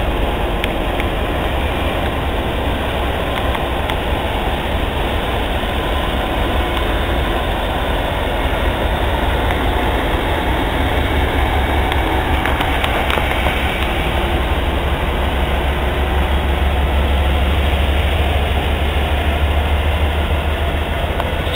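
Freight train rolling past with its diesel locomotives running, a steady rail and engine noise. A deep engine sound grows louder about two-thirds of the way through.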